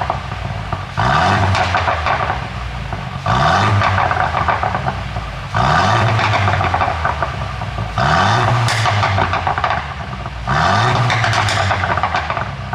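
Mercedes W205 C200's turbocharged four-cylinder revved in short blips about five times, each rise in revs followed by a second or more of rapid pops and crackles from the exhaust as the revs fall: a 'pop sound' ECU tune making the exhaust crackle on the overrun.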